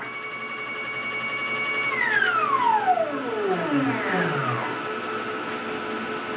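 CNC router spindle whining at a steady pitch, then spinning down about two seconds in, its whine falling smoothly over two or three seconds as it is switched off after the cut. A steady hum continues underneath.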